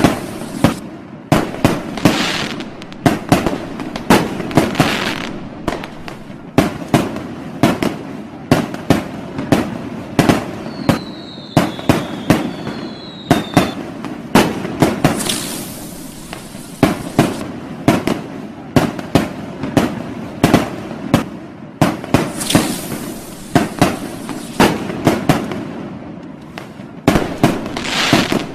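Fireworks and firecrackers going off in a continuous, irregular barrage of sharp bangs and pops, with swells of crackling hiss every few seconds. A brief falling whistle sounds about halfway through.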